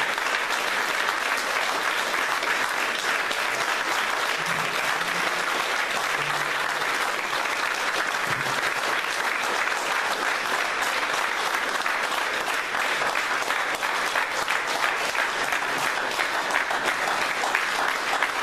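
A roomful of people clapping: steady, sustained applause that does not let up.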